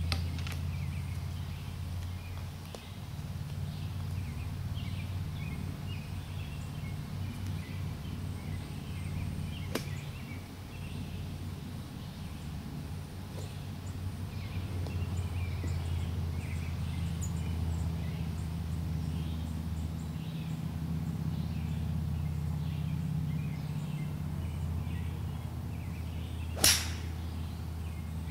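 Golf club striking a teed golf ball on a tee shot: one sharp crack near the end. Underneath there is a steady low hum and scattered faint bird chirps.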